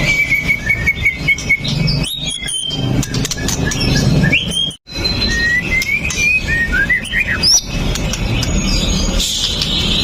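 White-rumped shama singing: a rapid trill of repeated notes, then a varied run of clear whistles and rising and falling slurs, ending in a long drawn-out whistle. The sound cuts out for an instant about halfway through.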